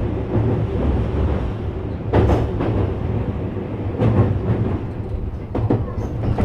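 JR West 321 series electric train running along the line, heard from inside the car: a steady low rumble of wheels on rail, with a few louder knocks about two, four and nearly six seconds in.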